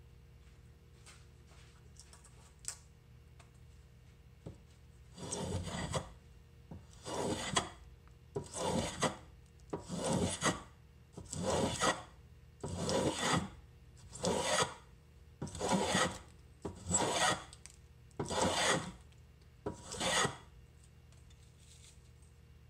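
Hand rasp scraping along a wooden handle blank held in a vise, in about eleven long, even strokes starting about five seconds in, shaping the wood.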